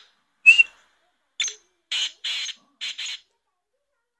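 A six-month-old black francolin calling: one loud, sharp whistled note, then after a pause a run of five short, harsh, grating notes.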